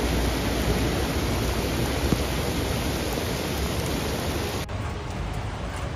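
Heavy rain pouring onto a flooded street, a steady hiss of rain and water. About four and a half seconds in it cuts suddenly to a duller, lower rushing noise.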